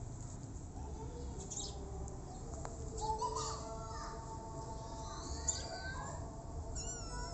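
Birds chirping: short, wavering high-pitched calls that come again every second or two over a low background rumble.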